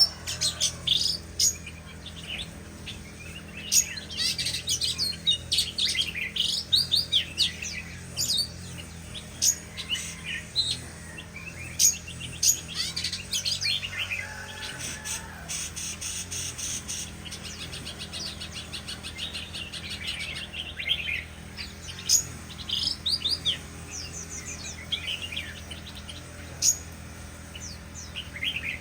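White-rumped shama singing a varied song of short phrases: clear whistles, chirps and fast rattling trills, with brief pauses between phrases. A steady low hum runs underneath.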